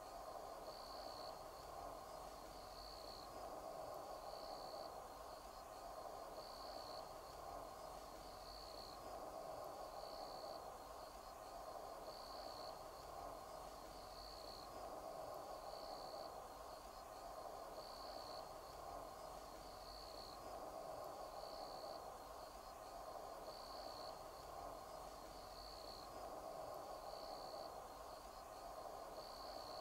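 Faint outdoor ambience: an insect chirping, one short high chirp about every two seconds, over a steady hum.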